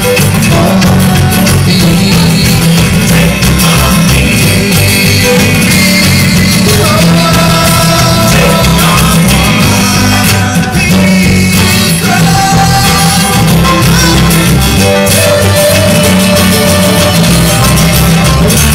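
Live bluegrass band playing loud and continuous: banjo, upright bass and acoustic guitar, with voices singing over them.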